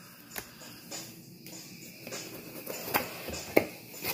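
Cardboard and plastic packaging being handled: scattered light clicks and rustles, with a few sharper taps near the end.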